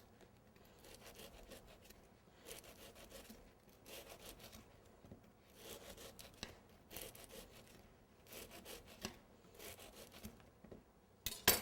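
Knife cutting and trimming a block of Rice Krispies treat, in a series of short strokes about one every second or so, with a sharp knock near the end.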